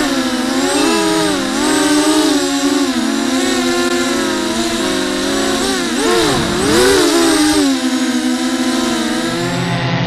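Quadcopter's electric motors and propellers whining, heard from on board, the pitch rising and falling with the throttle. About six seconds in the pitch swings sharply down and up several times as the quad is thrown through hard manoeuvres, then settles lower near the end.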